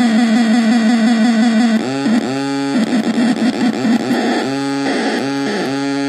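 A hand-built noise box of two high-gain fuzz circuits with a delay and feedback loops, giving off a harsh, buzzing feedback tone. For about two seconds it stutters about five times a second, then it drops to a lower tone that cuts in and out and swoops in pitch as the knobs and switches are worked.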